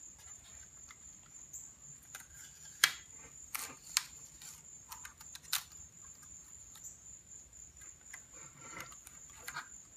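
Handling of blue masking tape and a light laser-cut model glider tail part on a workbench: a few sharp clicks and taps, the loudest about three seconds in, over a steady high whine.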